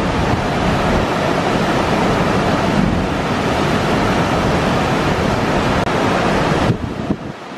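Whitewater rapids of a fast mountain creek in high flow, a steady rush of churning water over boulders. The rush dips briefly near the end.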